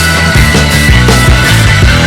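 Loud rock music with a heavy bass line and a steady beat.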